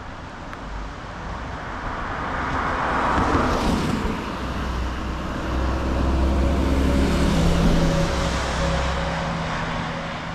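Road vehicles passing by out of sight. The first swells and passes about three seconds in, its sound dropping in pitch as it goes by. A second engine hum then builds, holds, and fades away toward the end.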